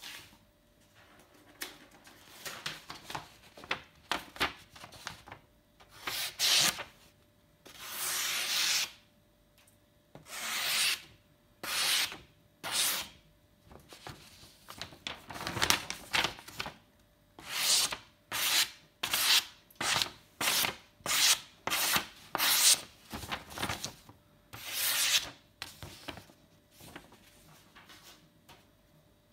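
Sanrenmu LAND 9103 folding knife's Sandvik 12C27 blade slicing through a sheet of paper: a run of some two dozen quick cutting strokes. The longest drawn cuts come in the first third, and a fast run of about one cut a second comes in the middle. The strokes dwindle to faint handling near the end.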